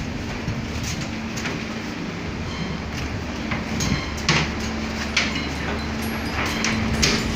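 Steady machinery hum with a low drone aboard a fishing trawler, broken by several irregular sharp knocks.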